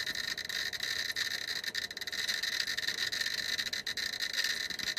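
GQ GMC-320 Plus Geiger counter clicking in a dense, irregular stream, with a steady high tone underneath: it is counting about 4,300 counts per minute from the radioactive plate it sits on.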